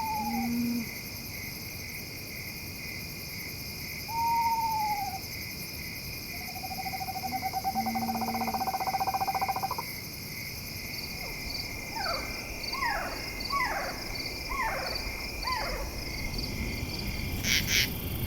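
Eastern screech owl calling: two short descending whinnies, then a long even trill on one pitch, then a quick series of falling notes. Night insects chirr steadily behind it.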